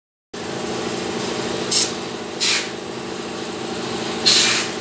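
An engine running steadily, cut by three short bursts of hissing, the last the loudest and longest.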